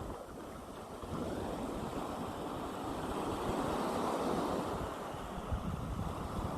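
Gentle sea waves breaking and washing on the shore, a soft wash that swells to a peak about four seconds in and then eases back, with a low rumble of wind on the microphone.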